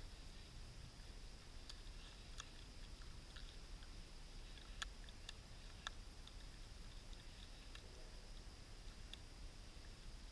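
Faint, irregular clicks and crunches of a wild animal chewing food, over a steady faint hiss.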